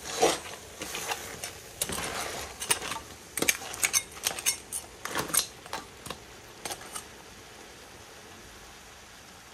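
Metal spoon scraping and clinking against a large metal pan while stirring crab pieces in a thick curry, an irregular run of knocks and scrapes that stops about seven seconds in, leaving a faint steady hiss.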